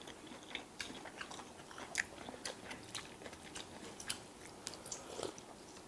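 People chewing dumplings: faint wet mouth smacks and chewing with scattered short clicks.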